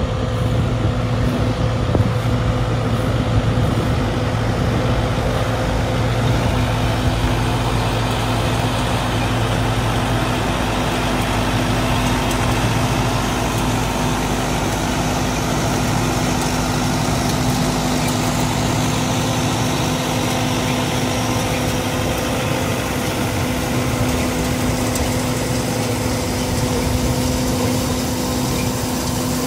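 Peanut harvester running steadily, a dense mechanical drone with a constant hum. A deep low rumble drops away about ten seconds in.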